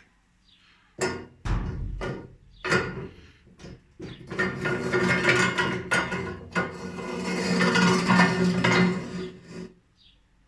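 Several sharp knocks and scrapes, then a continuous grinding rasp with a steady low hum for about five seconds, which stops suddenly.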